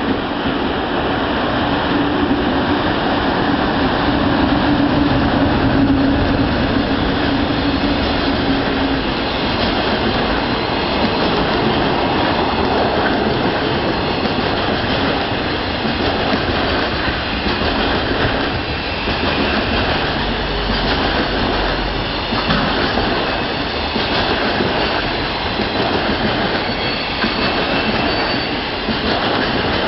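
A JR Freight container train hauled by an EF200 electric locomotive passing at speed: a steady loud rumble of steel wheels on rail with clickety-clack over the rail joints as the Koki container wagons roll by. A held tone sounds for about the first nine seconds, then fades out.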